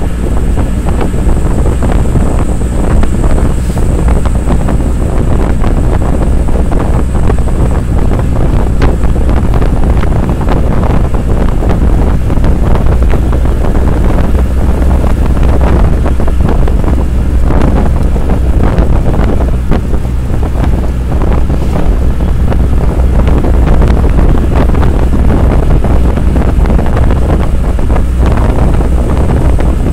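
Auto-rickshaw ride heard from inside the cab: a loud, steady low engine and road rumble with wind buffeting the microphone, and frequent small rattles and clicks.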